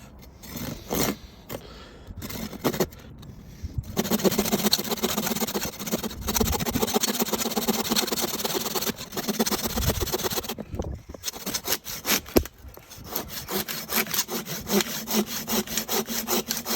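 Mossy Oak folding pruning saw cutting into a block of firewood with back-and-forth strokes. A few separate strokes at first, then steady sawing, broken off briefly past the middle before it picks up again.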